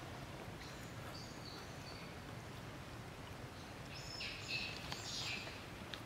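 Steady background noise with short high-pitched animal calls, a few faint ones about a second in and a louder run of squeaky calls between about four and five and a half seconds in.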